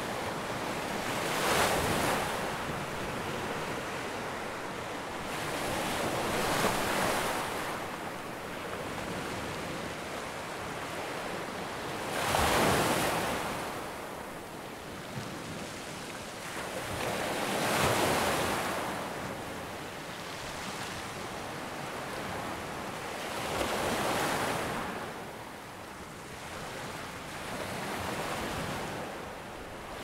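Ocean surf washing in and out, each wave swelling and falling away about every five to six seconds.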